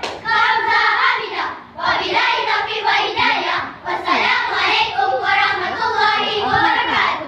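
A chorus of schoolchildren singing in unison in a Malay 'bicara berirama' rhythmic choral speaking piece. There is a short break about a second and a half in, and the voices stop right at the end.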